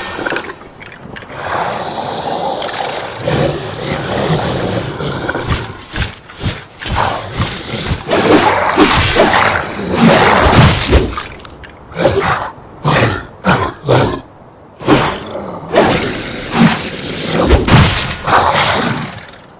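Sound-designed skeleton-warrior monster effect: long, harsh roars and growls, then a run of short, sharp hits and crashes as it attacks and breaks things.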